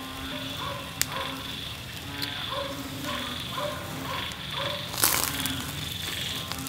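Chicken breasts crackling on a charcoal grill. Metal tongs click against the wire grate a few times, loudest about five seconds in. A steady background of short, repeating chirps runs throughout.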